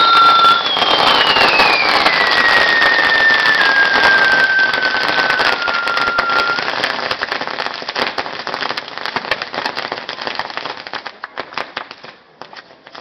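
Castillo fireworks tower burning with a dense crackle of sparks and firecrackers, while a high firework whistle glides slowly down in pitch over the first several seconds. The crackling fades and thins to scattered pops near the end.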